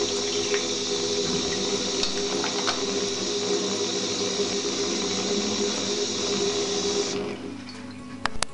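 Single-lever chrome mixer tap running a steady stream into a ceramic washbasin, shut off about seven seconds in. A few sharp clicks follow near the end.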